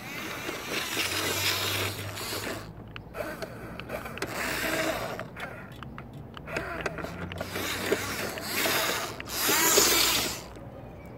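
Toy RC truck's electric motor and gears whining in three surges as it drives, with its tyres grinding over sandy dirt. The sound is loudest as the truck passes close near the end.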